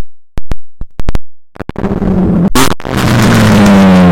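BMW Z3 2.8i's straight-six with its exhaust line cut back to only the catalytic converter, running very loud: a string of sharp cracks and pops first. The engine then revs up with another loud crack, its note falling slightly as the revs drop near the end.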